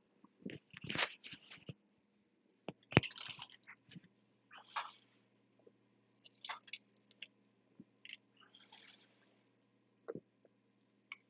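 Wet mouth and liquid sounds close to the microphone as a person drinks from a can of fizzy drink: short scattered bursts of slurping, smacking and swallowing, with one sharp click about three seconds in.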